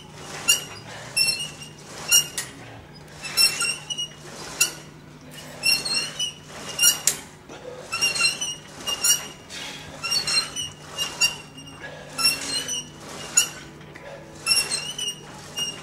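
Pulleys of a cable crossover machine squeaking with each rep as the cables run out and back, a short high squeak about every second. A steady low hum runs underneath.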